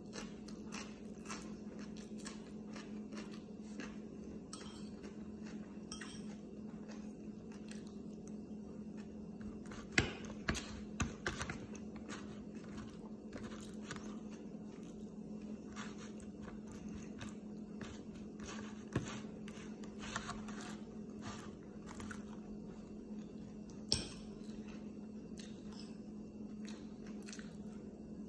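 Close-miked chewing and mouth sounds of a person eating, with many small clicks and a few sharper knocks of a spoon or dish against tableware, the loudest about ten seconds in and again near 24 seconds. A steady low hum runs underneath.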